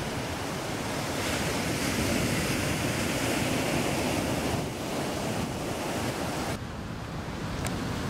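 Ocean surf breaking and washing up a sandy beach, a dense steady rush with wind on the microphone. About six and a half seconds in it cuts off abruptly to a quieter hiss.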